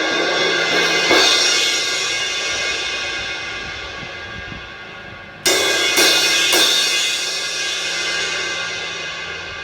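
Cracked Sabian 19-inch Vault V-Crash crash cymbal struck and left to ring: one hit about a second in, then three quick hits around five and a half seconds in, each wash fading slowly. A faint humming comes from the crack area, a sign of the crack damage.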